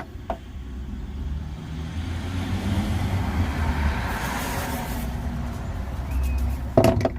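Diesel heater start-up with its fan blowing air: a rushing whoosh over a low rumble that swells through the middle and eases off. A couple of sharp knocks come near the end.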